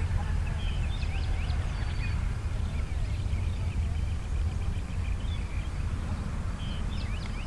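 Steady low rumble of wind on the microphone, with birds chirping and calling in short bursts of rising and falling notes in the background.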